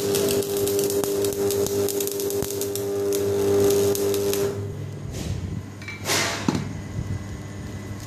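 Electric arc welding: the arc crackles and sputters over a steady hum for about four and a half seconds, then cuts off. After it comes a short scraping rush and a couple of light knocks.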